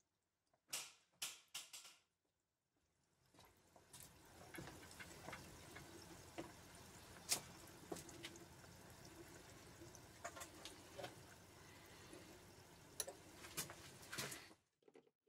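Frozen beef croquette deep-frying in an electric deep fryer: hot oil bubbling and sizzling faintly, with scattered crackles and pops. A few separate pops come in the first two seconds, then the sizzle runs on steadily until it stops shortly before the end.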